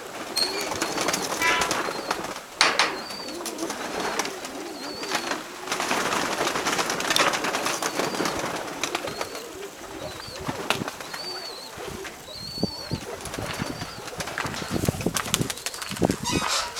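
Domestic Nikolaev pigeons cooing over and over in low rolling calls, with scattered rustles and clicks and short high chirps over the top.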